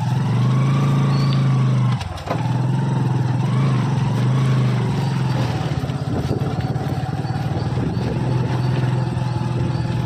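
A motor vehicle's engine running steadily at low speed, a constant low hum that drops out briefly about two seconds in.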